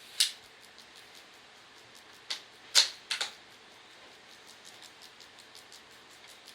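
Sharp mechanical clicks: one, then after about two seconds a quick group of three, the last a doubled click.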